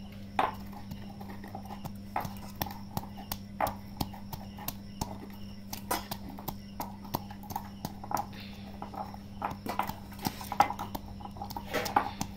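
Wooden pestle pounding garlic and ginger in a metal mortar bowl: sharp, uneven knocks about two a second, over a steady low hum.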